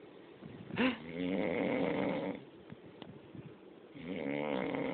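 A man snoring in his sleep: two drawn-out snores about three seconds apart. The first starts with a brief, sharp catch, and the second begins near the end.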